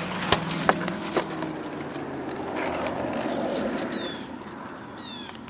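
Twigs and brush snapping: three sharp cracks in the first second or so, then a louder rustle of leaves and branches that fades away near the end.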